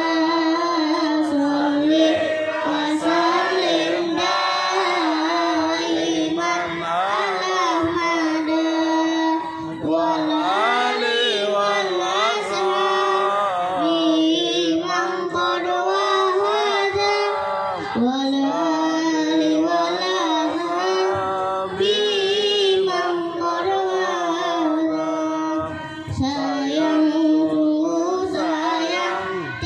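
A young boy singing into a microphone in long, wavering phrases, with a few brief pauses between lines.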